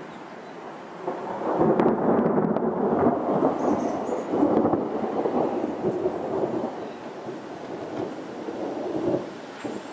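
A clap of thunder: a rumble that breaks in sharply about a second and a half in, holds loud for several seconds, then rolls away, swelling once more near the end.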